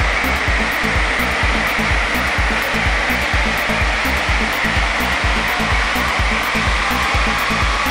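Steady, loud rushing air noise from a car's rolling-road dyno session, with a regular low beat of background music underneath.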